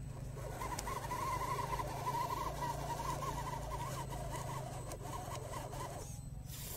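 Electric motor and gears of a scale RC crawler whining under load as it climbs a steep slope, the pitch wavering with throttle and wheel grip. The whine cuts out about six seconds in.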